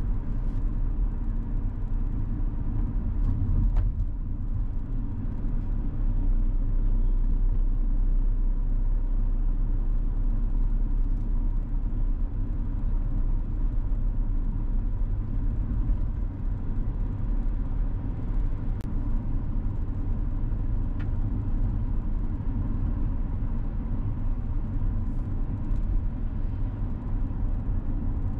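Steady low rumble of a car driving, heard from on board, with a faint steady whine running through it and a few faint ticks.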